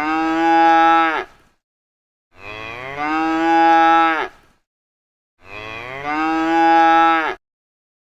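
A cow mooing: the same long moo three times, about three seconds apart. Each moo rises a little in pitch, then drops and cuts off sharply at the end.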